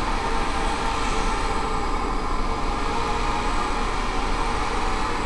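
Blade Nano QX micro quadcopter's small motors and propellers whirring steadily in flight, under an even hiss.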